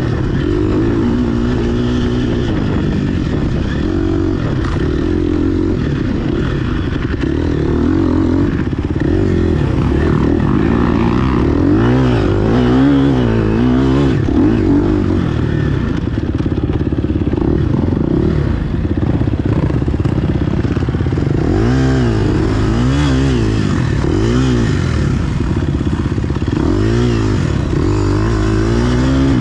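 GasGas EX 250F four-stroke single-cylinder dirt bike engine under way, revving up and down over and over as the throttle is worked, its pitch rising and falling every second or two.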